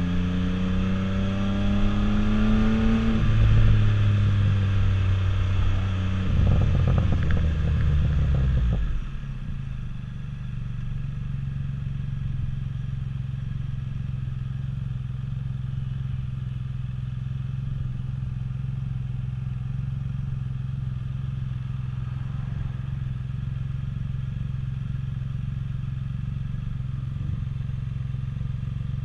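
Can-Am Spyder F3-S's three-cylinder engine pulling with a rising pitch, dropping in pitch about three seconds in, then slowing over the next few seconds with wind rush. From about nine seconds on it idles steadily at a stop.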